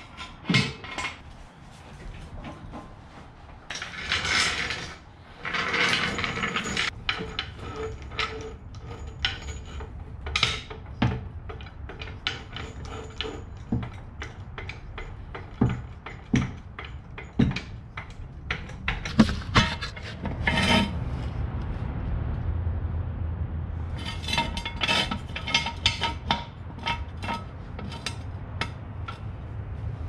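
Hand tools and steel jack stands working under a car: a run of irregular metal clinks, knocks and taps, with two longer rasping, scraping stretches about four and six seconds in.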